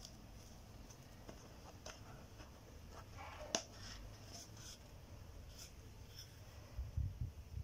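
Faint rubbing and scratching of a cat wriggling on its back on a foam mat, with a cardboard tube brushing its fur. A sharp tap about halfway through, and a few soft low thumps near the end.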